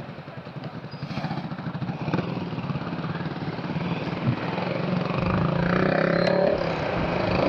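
Honda Click 125i scooter's single-cylinder engine running under way through a turn, growing steadily louder as it picks up speed.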